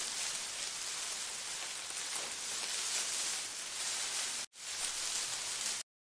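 A steady, even hiss, with a brief dropout about four and a half seconds in; it cuts off sharply to silence near the end.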